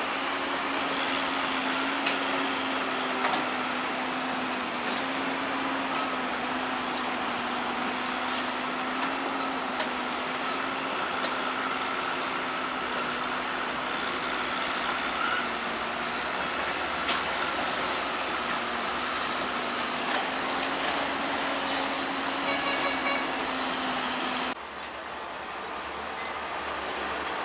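Heavy diesel earthmoving machinery running steadily under load, with scattered clanks and knocks. The engine note cuts off suddenly near the end.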